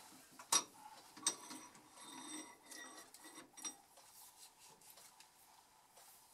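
A few sharp metallic clicks and clinks as a steel shaft is loosened and drawn out of a stopped lathe's three-jaw chuck, one of them ringing briefly, then faint handling noise.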